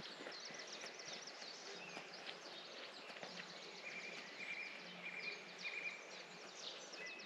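Small birds singing faint, rapid trills, with a run of short repeated notes at one pitch midway.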